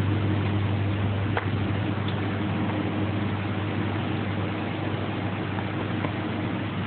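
Steady low mechanical hum with an even hiss over it, broken only by a few faint light clicks.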